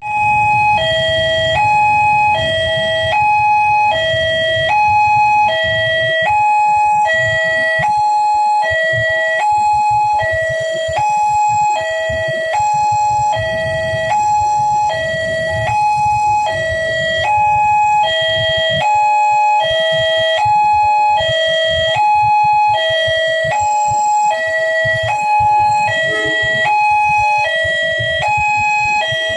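Electronic railroad crossing warning siren sounding, two tones alternating high and low about every half second. It starts suddenly, and a low traffic rumble runs underneath.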